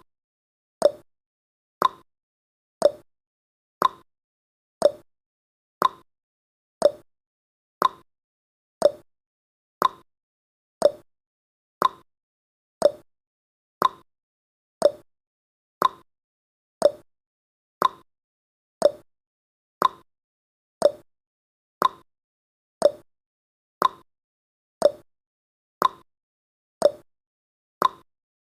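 Countdown timer tick sound effect: one short, sharp tick each second, evenly spaced.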